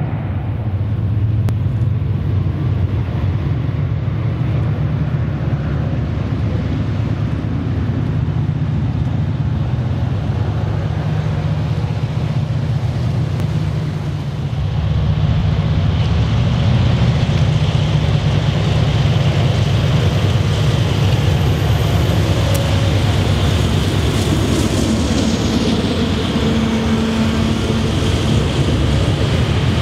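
EMD SD50 diesel-electric locomotive with a 16-cylinder two-stroke engine, working hard as it hauls a loaded tank-car train. The sound cuts about halfway through to a second, louder pass, where the steel wheels of the tank cars clattering over the rails join the low engine note near the end.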